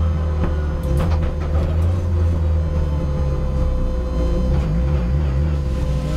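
Race car engine running at low revs, a steady low drone heard from inside the stripped, roll-caged cabin as the car rolls slowly, with a few sharp clicks in the first two seconds.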